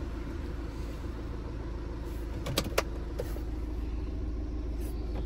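BMW 520d xDrive's 2.0-litre four-cylinder diesel idling steadily just after a push-button start, heard from inside the cabin. Two sharp clicks come about two and a half seconds in.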